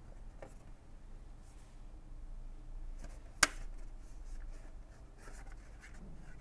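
Quiet handling of a catalogue of plastic texture plaques, faint rustling and light ticks, with one sharp click about three and a half seconds in.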